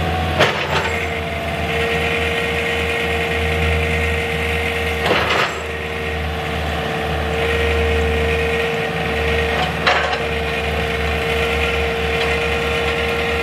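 A heavy machine's engine running steadily under load, with a constant whine over a low pulsing drone. Three sharp knocks or cracks come through it, about half a second, five seconds and ten seconds in.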